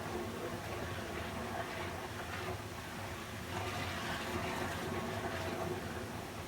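Steady rushing flow of water, a continuous even wash that swells and eases slightly, with a faint low hum underneath.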